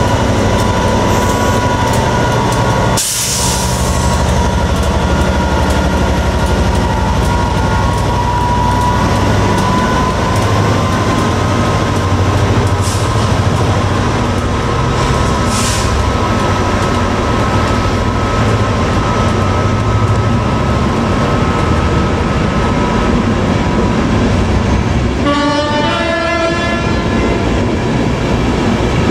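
Class 67 diesel-electric locomotive hauling passenger coaches slowly past, its engine running with a steady whine over the low drone. There is a brief loud hiss about three seconds in, and a short run of rising tones near the end as the coaches roll by.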